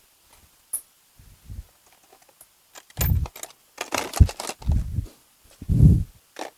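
Metal sockets and hand tools clicking and clinking as they are handled and sorted, with a cluster of quick clatters a few seconds in and a few low thumps.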